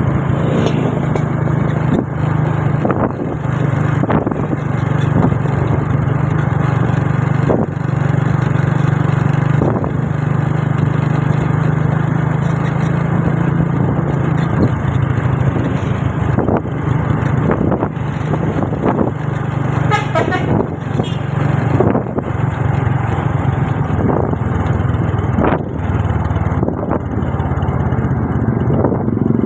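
Road vehicle engines running steadily in close traffic, with knocks and gusts of wind noise. There is a brief wavering pitched tone about two-thirds of the way through.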